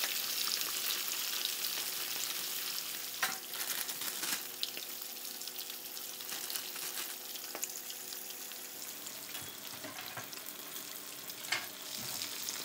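A whole golden pomfret deep-frying in a pan of hot oil: a steady hiss of bubbling oil, fine crackling throughout, and a few sharper pops.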